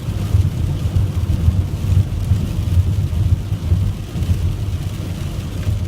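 Steady low drone of engine and road noise inside a Dodge van's cabin at highway speed, with rain hitting the windshield.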